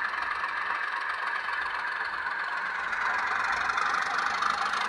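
N gauge model diesel locomotive running along the track: a steady whir of its small motor and the rattle of its wheels on the rails, growing slightly louder toward the end.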